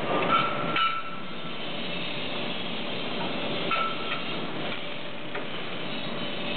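Automatic prop-tube welding machine loading steel tubes: sharp metal clanks with a brief ringing in the first second, and another clank with a ring a few seconds in, over the machine's steady hiss.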